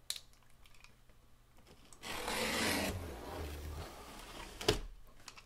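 Utility knife blade slicing along the packing tape on the seam of a cardboard box, a scraping rasp that starts about two seconds in and lasts about two seconds. A single sharp tap follows near the end.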